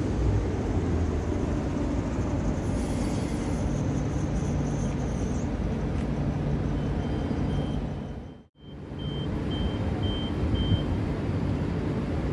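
Queensland Rail electric suburban train pulling out of a station, with steady running noise and a low motor hum. The sound cuts out for a moment about eight seconds in, then another electric train standing at the platform hums, with a row of short high beeps.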